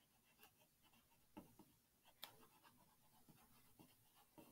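Near silence: room tone with two faint clicks, one about a second and a half in and one just after two seconds.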